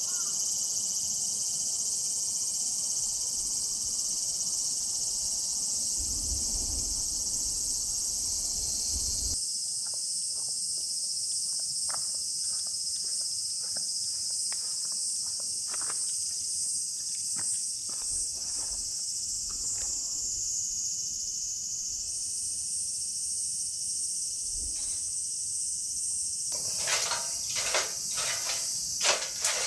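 Insects singing in a steady high-pitched drone, with scattered light clicks and knocks that grow busier near the end.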